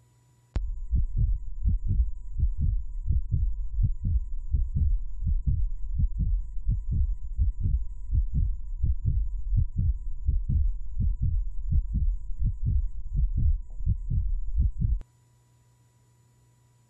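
Low, heavy heartbeat-like thumping, about three thumps a second, that starts half a second in and cuts off suddenly near the end. A faint steady electrical hum runs beneath it.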